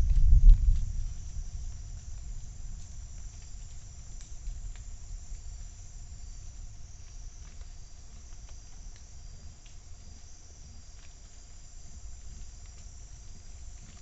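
Rainforest insects chirring in a steady high band, with a steady lower hum beneath. A low rumble fades out in the first second or two, and faint scattered ticks come and go.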